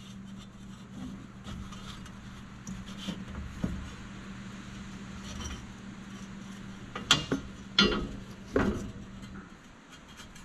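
Hands working on the underside of a UTV: light handling noise and a few faint knocks, then three louder metal clanks about seven to nine seconds in, over a steady low hum.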